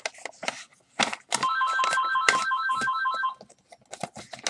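A telephone ringing with an electronic trilling ring: several tones pulsing rapidly, about five or six times a second, for about two seconds before stopping. Short rustles and clicks of paper and envelopes being handled are heard around it.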